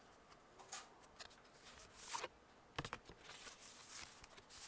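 Faint handling of a set of art cards: soft rustles and a few light clicks and taps of card as they are flipped through, the clearest between two and three seconds in.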